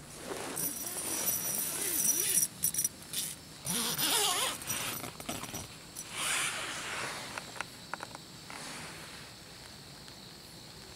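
Insects chirping in a steady high trill, with rustles and a few brief wavering calls in the first half.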